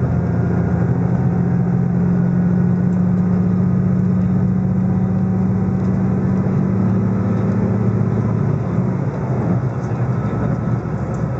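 Diesel express train heard from inside the car while it is under way: a steady low engine drone over even running noise, easing a little near the end.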